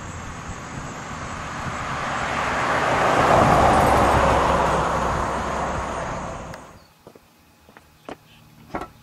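1967 Oldsmobile Toronado with its 425 cubic-inch V8 driving past: the engine and tyre noise grow louder as it approaches, peak as it goes by about three to four seconds in, then fade away. The sound cuts off abruptly near seven seconds, leaving a few faint clicks.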